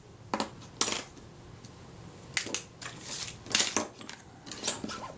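Small metal camera parts and tiny screws clicking as they are picked up and set down, a dozen or so light, irregular clicks.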